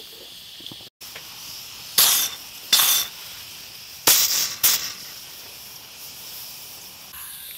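Kazan Afghan pressure cooker at full pressure on the campfire, its pressure release valves hissing steadily. Four sharp spurts of steam come between about two and five seconds in, a sign that the cooker is up to pressure and venting as it should.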